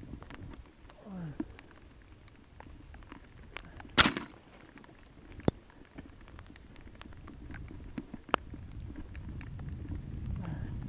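Mountain bike ridden over rough, slippery trail: scattered clicks and knocks from the bike, with one loud clunk about four seconds in. A low rumble builds near the end.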